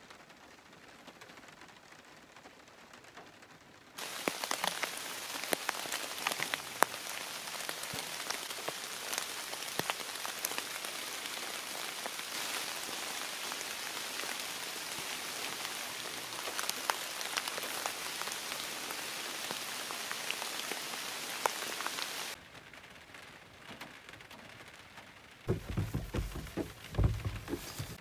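Heavy rain falling steadily, an even hiss scattered with sharp ticks of drops striking the wet truck. The rain comes in suddenly a few seconds in and cuts off sharply near the end, after which low rumbling thumps are heard.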